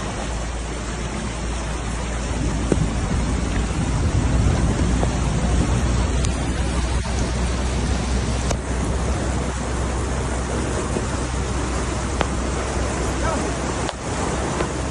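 Steady rush and splash of floodwater churning around a car as it drives through a flooded road.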